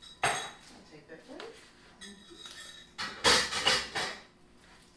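Metal spoon knocking and scraping against a mixing bowl while stirring batter: one sharp clatter near the start, then a quick run of louder knocks and scrapes a little past three seconds in.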